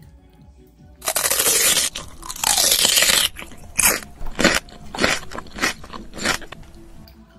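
Loud crunching close to the microphone from eating McDonald's food: two long crackly stretches, then a run of about eight short crunches.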